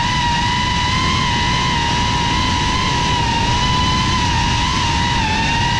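FPV quadcopter's brushless motors whining at a nearly steady pitch over a low rushing noise of propeller wash and wind. The pitch swoops just before and just after, following the throttle.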